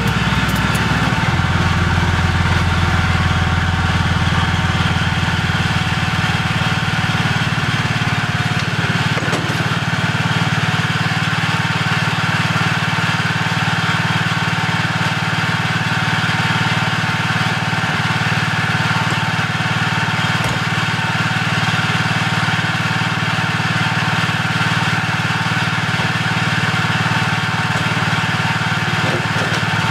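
Small gasoline engine of a wheeled mini skid-steer loader running steadily at idle; its note shifts about a second in, then holds steady.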